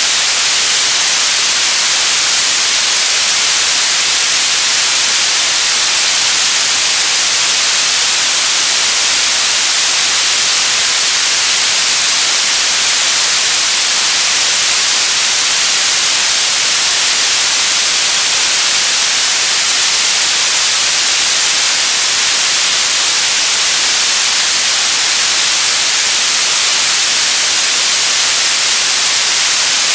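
Radio static: a loud, steady hiss, brightest in the treble, that does not change.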